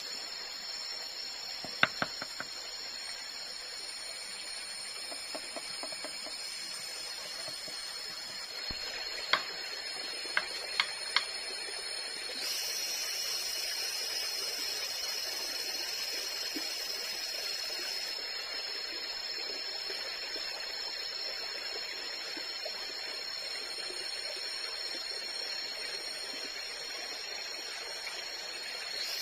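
Tropical forest ambience: a steady high-pitched insect drone over a hiss. Sharp clicks of a metal spoon against a bamboo cooking tube, three about two seconds in and four more around ten seconds in.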